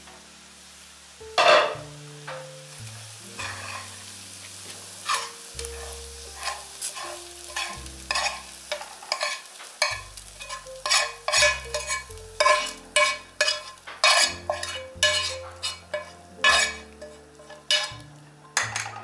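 Metal spoon scraping and knocking against a frying pan as fried onion and grated carrot are scraped out into a pot of soup. One sharp clank about a second and a half in, then the scrapes come quicker in the second half, about two a second.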